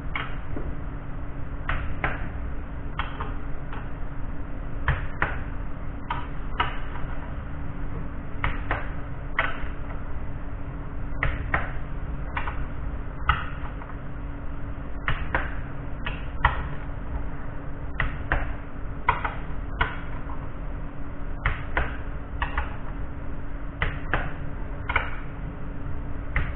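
Hand ratchet wrench clicking in short runs of two or three clicks about once a second as bolts on an automatic transaxle are run in during reassembly, over a steady hum.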